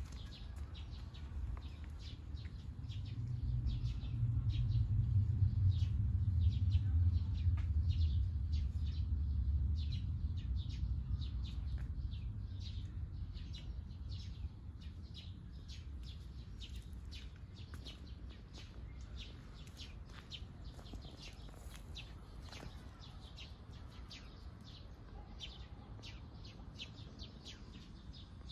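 Birds chirping outdoors in many short, rapid chirps, with a low rumble that swells a few seconds in and fades away by about halfway.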